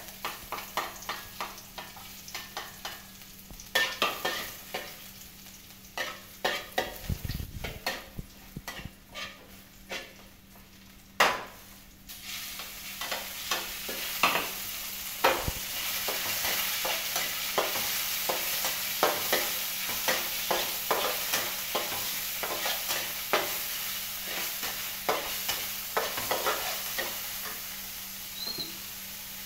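Meat and vegetables stir-frying in a metal wok: a metal spatula scrapes and clacks against the pan many times over a sizzle. The sizzle grows louder after about twelve seconds.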